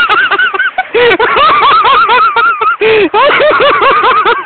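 Loud, hard laughter in quick repeated bursts, with short breaks for breath about a second in and again near three seconds.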